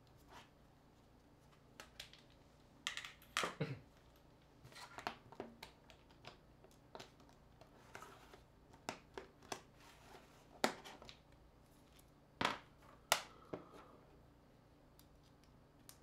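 Scattered clicks and taps of small hand tools and phone parts while a smartphone is taken apart on a table, with a cluster about three seconds in and a few sharper clicks near the end.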